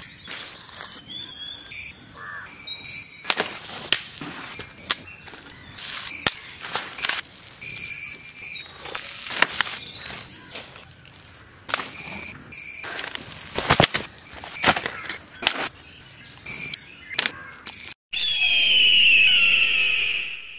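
Wood fire crackling and popping over forest background sound with high bird or insect chirps. About eighteen seconds in, after a brief drop-out, a loud title sound effect with gliding tones takes over and cuts off at the end.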